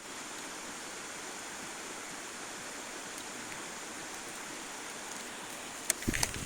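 Steady rush of water at a waterfall. Near the end come a few sharp clicks and a low rumble.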